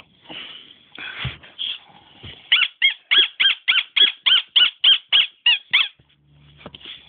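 A dog giving a fast run of short, high-pitched squeaky yips, about four a second, in place of a bark, after a couple of seconds of softer rustling noise.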